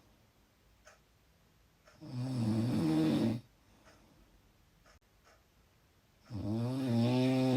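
Loud snoring: two snores about four seconds apart, each a little over a second long, with quiet between them.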